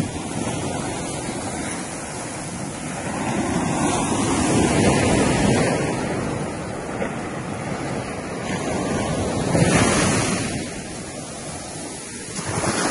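Ocean surf washing in, swelling louder about halfway through and again near the end, with wind buffeting the microphone.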